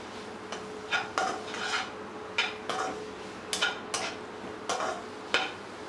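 Yellow silicone spatula stirring and scraping spiced minced chicken around a nonstick pan, in a series of quick strokes about two a second.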